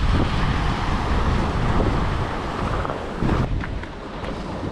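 Wind buffeting the microphone, with ocean surf washing in underneath; the noise eases off slightly toward the end.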